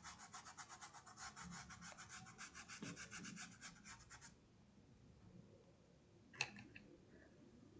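Faint, rapid, even scratching of a paintbrush scrubbing paint into a cotton tea towel, stopping abruptly about four seconds in. A single click follows near the end.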